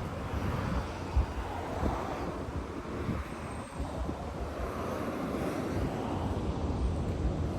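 Wind buffeting the microphone over the steady noise of road traffic, with broad swells as vehicles pass.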